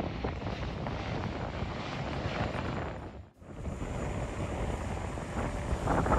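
Aircraft engine noise from an airshow flypast, a steady rumbling roar. It breaks off briefly a little over three seconds in, then resumes.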